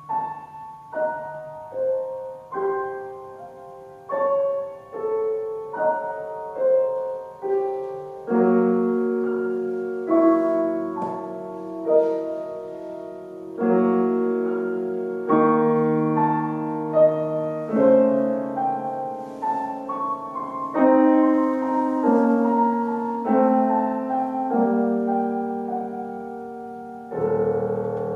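Grand piano played solo in a contemporary classical piece. Single notes are struck about once a second at first, then fuller chords with lower notes take over from about eight seconds in, and a deep low chord is struck near the end and left ringing.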